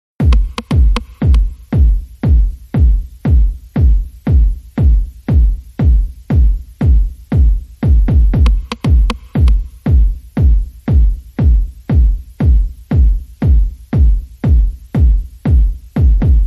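Background electronic dance music with a heavy, steady drum-machine kick a little over twice a second and a light hiss of cymbals on top.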